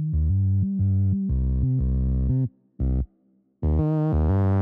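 Music: a synthesizer line of short, separate low notes, pausing twice for a moment.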